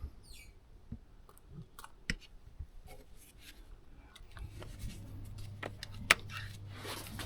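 Scattered light clicks and knocks of tools and parts being handled in a car's engine bay. A low steady hum comes in about four seconds in.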